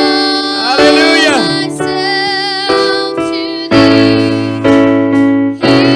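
Keyboard playing held chords that change about once a second, with a voice singing briefly over it.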